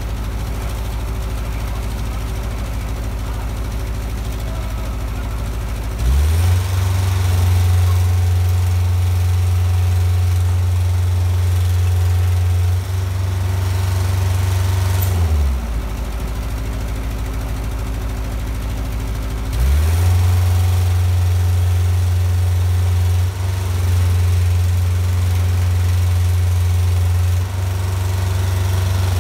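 Engine powering a side lifter's hydraulics, running at a low idle and then stepping up to a higher, louder steady speed about six seconds in as the lifting arms work. It drops back to idle about halfway through and speeds up again about two-thirds of the way in.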